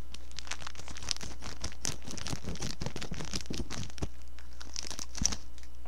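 Jjolbyeong Snack packaging crinkling and crackling with many small clicks as it is opened, over a steady low electrical hum.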